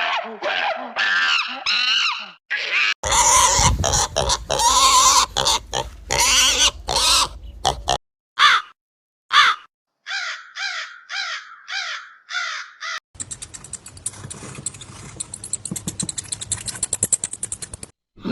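A string of different animals' calls, one short recording cut after another: short calls at first, a louder run of calls over a low hum, a row of evenly repeated short calls, then a stretch of steady noise with fast ticking.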